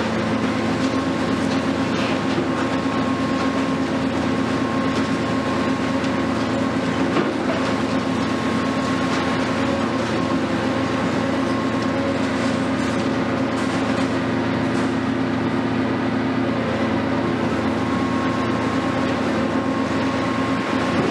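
Hitachi 470 excavator's diesel engine running steadily: a constant mechanical drone with a steady whine on top.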